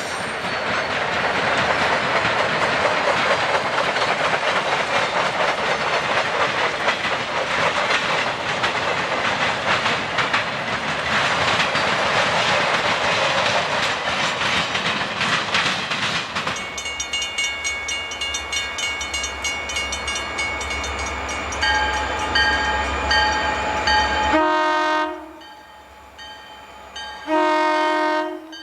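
Train rolling past with a steady rush of wheel noise for about the first sixteen seconds. Then a locomotive rumbles low with a steady ringing tone over it, and a multi-tone horn sounds two blasts near the end, a short one and then a longer one.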